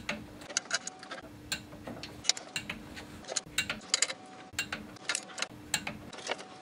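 Ratchet head of a torque wrench clicking in short runs of sharp clicks as clutch pressure plate bolts are tightened to 14 ft-lb.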